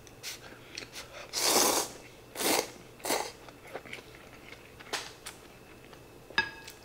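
Ramen noodles slurped in three hissing pulls, about one and a half, two and a half and three seconds in, followed by chewing. A utensil knocks against the bowl with a short ring near the end.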